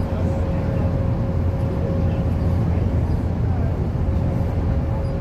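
Train running steadily: a continuous low rumble with a steady hum.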